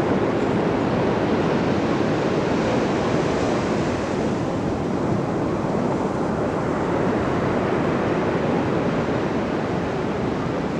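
Ocean surf breaking and washing on the shore, a steady rushing wash that eases slightly about four seconds in.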